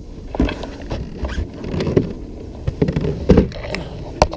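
Irregular knocks, thumps and scuffs from handling on a plastic kayak's deck and fittings, with a few sharp clicks near the end.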